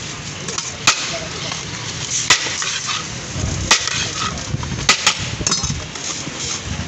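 Metal serving spoon clinking against a large aluminium cooking pot and its metal lid as rice is scooped out, about six sharp clinks spread irregularly over steady background noise.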